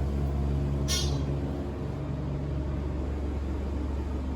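Elevator car in motion: a steady low hum and rumble with a brief high hiss about a second in.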